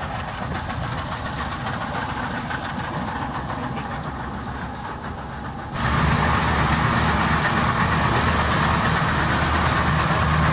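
Boat engine running at low revs. A little past halfway it changes abruptly to a louder, fuller engine sound as the boat runs underway, with a rushing noise over it.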